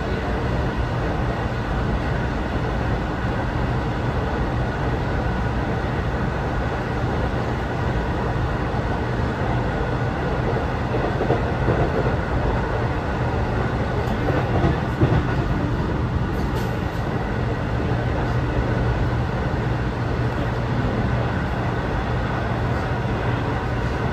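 Athens Metro Line 3 electric train running steadily at speed, heard from inside the carriage: an even rumble of wheels on rail under a low hum, with a few light knocks about midway.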